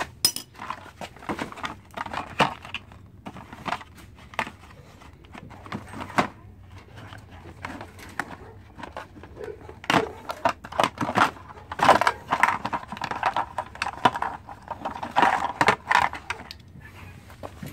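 Hand tools being rummaged through in a metal toolbox and a plastic torque wrench case being handled and opened: a string of irregular clicks, clacks and rattles of metal and hard plastic, busiest in the second half.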